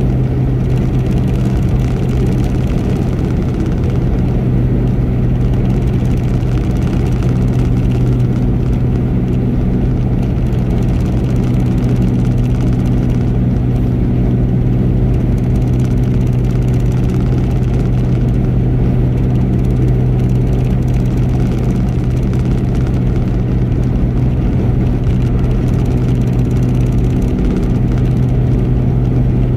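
Car driving at freeway speed: a steady engine drone over road and tyre rumble.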